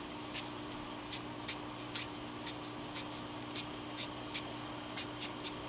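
Tombow brush-tip marker dabbing and stroking on paper card: quiet, irregular light ticks and scratches, about two or three a second, over a faint steady hum.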